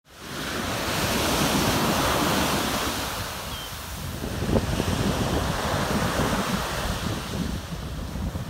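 Ocean surf washing up a sandy beach, fading in at the start and swelling as a wave rushes in over the first few seconds, with wind buffeting the microphone through the later part.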